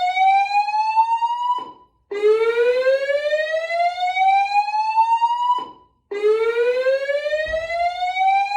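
Voice-evacuation fire alarm sounding its whoop tone: a loud tone rising steadily in pitch for about three and a half seconds, cutting off, and starting again from low after a half-second gap, three times.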